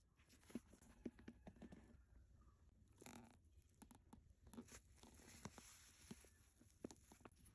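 Faint rustling and scattered small clicks from hands handling packaging and a handbag, with a longer rustle about three seconds in.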